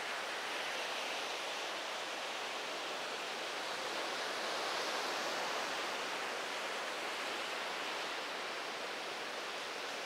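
Ocean surf washing onto the beach: a steady hiss that swells slightly about halfway through.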